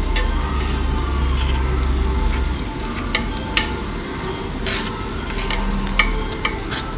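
Tabletop wet grinder running, its stone rollers churning soaked rice and milk into a thick batter in the steel drum. A steady gritty churning noise over a low motor hum, with a few short sharp clicks in the second half.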